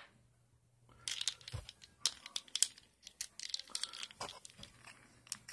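Plastic parts of a small mini Stomper 4x4 toy truck clicking and crackling as it is handled in the fingers, a quick irregular run of small clicks and snaps starting about a second in.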